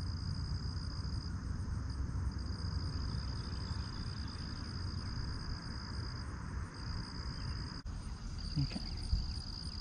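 Insects trilling in one high, steady tone that stops and starts again a few times, over a low, steady rumble.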